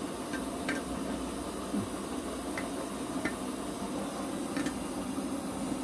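Brass Hyundai 703 kerosene pressure stove burning with a steady hiss, preheated and pumped up to a full blue flame. A few light metal clicks come from its wire pot support being set on the burner.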